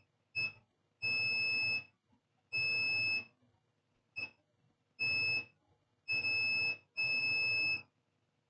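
Multimeter continuity beeper sounding seven times at one high, steady pitch, in irregular beeps from brief chirps to about a second long as the probes touch the board. The beeping means continuity: the laptop motherboard still shows a short.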